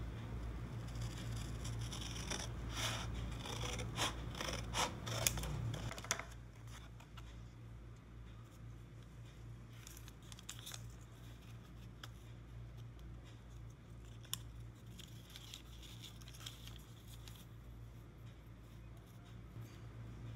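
Scissors cutting through a thin paper journal card: a run of crisp snips through the first six seconds. After that it is quieter, with a few light paper-handling sounds over a steady low hum.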